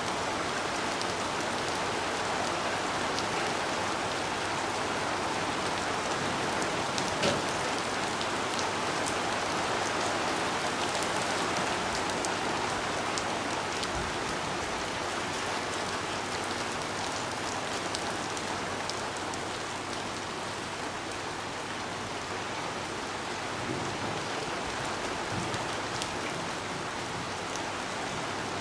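Steady rain falling, a constant hiss with many scattered drop hits, and one sharper drop or knock about seven seconds in.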